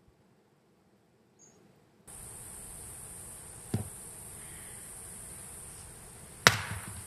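A steady, high-pitched insect chorus of the cricket kind starts abruptly about two seconds in. A knock follows a couple of seconds later, and a louder, sharp thump comes near the end.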